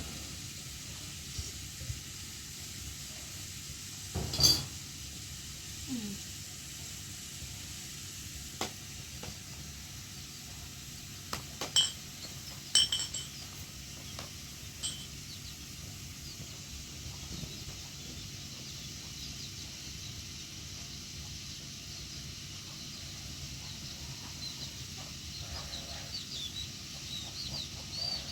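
A few sharp clinks with a short metallic ring, like pots or dishes being handled, spaced several seconds apart over a steady low hiss.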